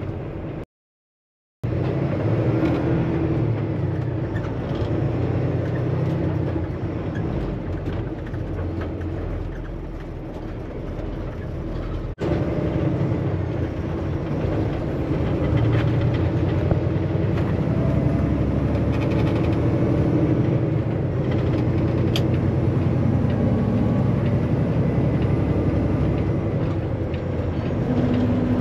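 Semi-truck engine and road noise heard from inside the cab while driving: a steady low drone whose tones shift a little with engine speed. It drops out completely for about a second near the start and cuts abruptly about twelve seconds in.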